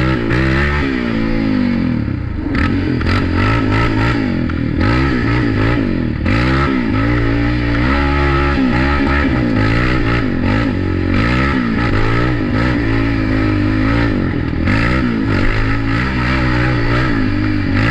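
2019 Yamaha Raptor 700 ATV's single-cylinder four-stroke engine being ridden hard, revving up and falling back again and again as the throttle is worked.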